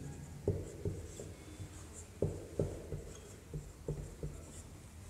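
Dry-erase marker writing on a whiteboard: a string of light, irregular taps and short strokes of the marker tip as a word is written out.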